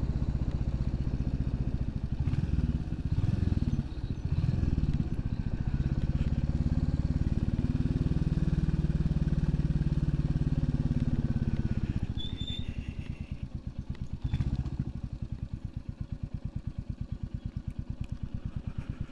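Royal Enfield Classic 350's single-cylinder engine running on the move, its revs rising and falling a few seconds in, then steady. After about twelve seconds it drops to a quieter, slower, even beat with each firing stroke heard separately.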